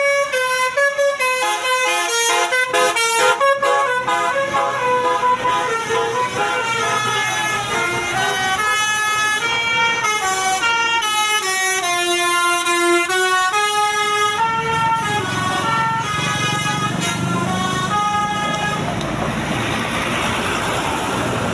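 Bus 'telolet' musical horn playing a tune of stepping notes, several horn tones at once, for most of the time. Near the end the melody stops and a steady rushing noise with a low rumble takes over.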